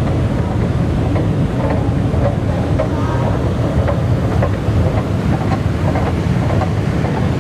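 Steady low rumble and hum of an underground metro station heard while riding a descending escalator, with faint light clicks scattered through it.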